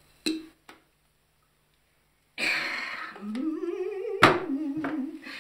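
A man with his mouth taped shut makes a muffled hum through the tape. It starts about three seconds in, rises in pitch, then wavers, with a sharp click just after four seconds. Near the start there are two short clicks.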